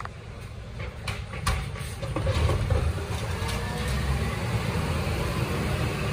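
Side-loading garbage truck setting an emptied wheelie bin back down, with a few clunks about a second in, then its diesel engine running louder as the truck pulls away.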